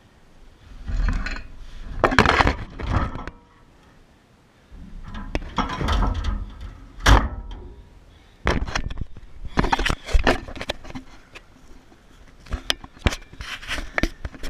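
Irregular knocks, scrapes and thumps of the camera being handled and shifted about against a pickup truck's metal bed.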